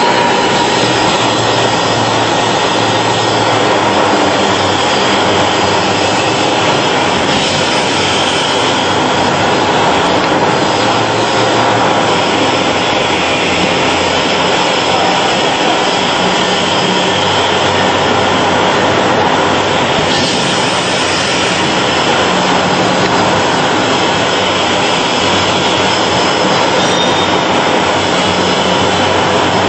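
Steady, loud machinery noise from a pneumatic loudspeaker assembly line, with its conveyor and air-driven dispensing head running: a continuous roar with several steady tones and no separate knocks.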